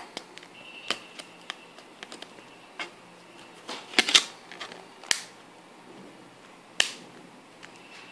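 Plastic clicks and snaps of a Samsung Galaxy Ace's back cover being pried off and clipped back on, with the battery pulled to force a restart of the frozen phone. About half a dozen sharp clicks are spread out, the loudest a quick double snap about four seconds in.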